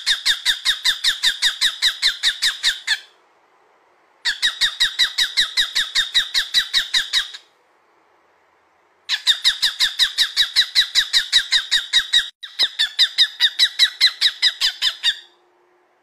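Small pet parrot calling in fast, evenly spaced high chirps, about seven a second, in three runs of several seconds each, broken by short pauses.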